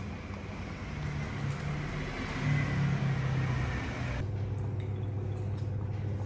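A steady motor hum under a hissing noise. The hiss cuts off abruptly about four seconds in, leaving only the low hum.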